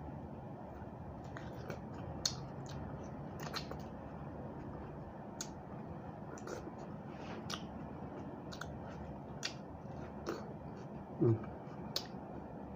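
Close-up chewing and crunching of raw fresh vegetables, with irregular crisp mouth clicks and crunches, and a brief hum from the eater about eleven seconds in.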